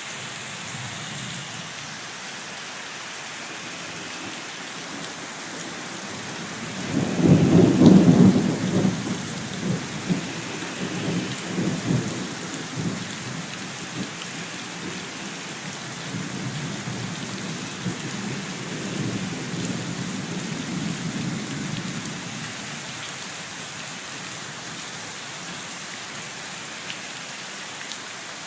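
Heavy rain pouring steadily, with gutters overflowing. About seven seconds in, a loud thunderclap breaks into a rumble that rolls on for several seconds, and a weaker roll of thunder follows later.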